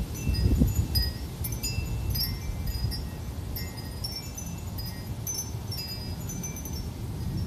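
Wind chimes tinkling in gusty wind, many short high notes at irregular intervals, over a steady low rumble of wind on the microphone.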